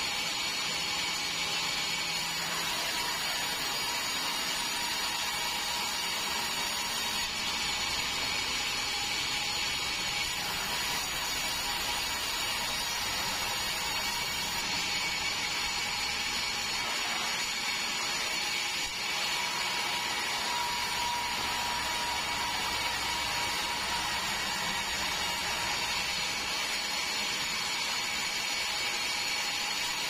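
Bandsaw mill running steadily while sawing red meranti into boards: a constant whine over dense sawing noise.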